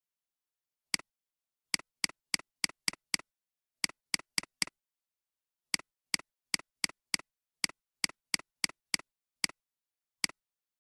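Computer mouse button clicking about twenty times in irregular runs of quick clicks, each a sharp press followed at once by a softer release, with dead silence between.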